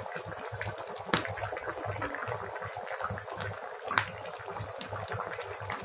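Curry boiling hard in a cast-iron karai over a wood fire, with a steady bubbling crackle and two sharp pops, about a second in and near four seconds.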